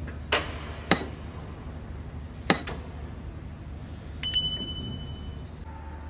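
Sharp clicks and knocks as a car bonnet is unlatched and lifted, then a metallic clink that rings briefly about four seconds in, as the metal prop rod is set. A steady low hum runs underneath.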